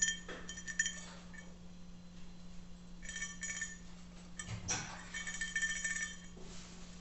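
Stainless-steel Stanley cup rattling with bright, ringing metallic clinks in bursts: near the start, about three seconds in, and again from about four and a half to six seconds in. The clinking is the unwanted noise the cup is making.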